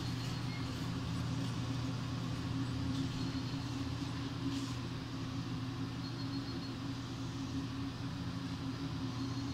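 Commercial convection oven running with a steady hum from its circulating fan.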